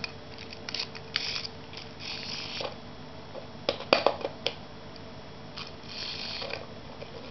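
Clockwork motor of a Hornby R854 0-4-0 toy locomotive whirring in short bursts as its wheels spin, with a cluster of sharp clicks and clatter about four seconds in as the little loco is handled and set down on a tiled floor.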